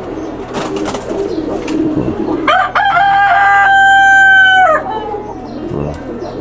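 A rooster crowing once, one long held call of about two seconds about halfway through, over the low cooing of caged pigeons.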